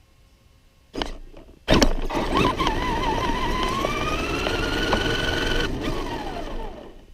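RC monster truck's drive motor. After a brief burst about a second in, it throttles up with a whine that wavers, then climbs slowly and holds. Near the end the throttle is released and the whine falls away as it coasts down.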